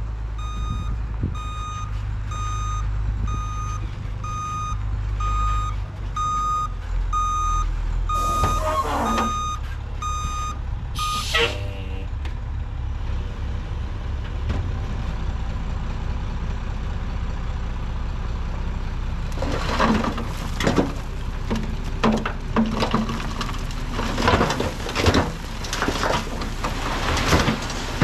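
Ford L8000 dump truck reversing, its backup alarm beeping evenly about three times every two seconds. Two short air-brake hisses follow, and the beeping stops as the truck halts. Later the bed tips and the load of fill dirt starts sliding out with a rough, crackling rumble that builds near the end.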